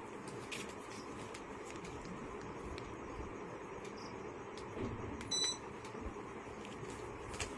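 Activa Gracia BLDC ceiling fan running, a steady rush of moving air. About five seconds in there is one short, high electronic beep, typical of the fan's receiver taking a remote command.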